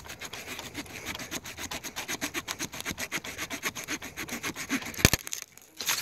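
Small folding saw blade of a Leatherman Wave multitool sawing through a 2-inch tree branch in quick back-and-forth strokes, about five a second. About five seconds in there is one sharp crack as the cut goes through the limb.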